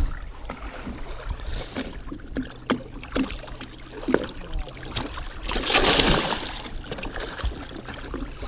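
Lake water splashing and lapping at the side of a boat as a hooked walleye is handled and grabbed at the surface, with scattered small knocks and one louder, longer splash about six seconds in.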